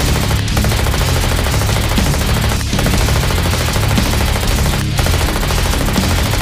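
Continuous rapid machine-gun fire, a minigun sound effect, dropping out briefly about every two seconds as the effect repeats.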